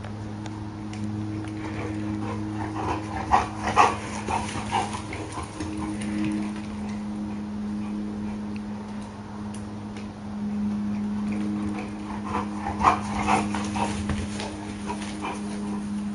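A dog giving short vocal bursts in two clusters, a few seconds in and again past the middle, over a steady low hum.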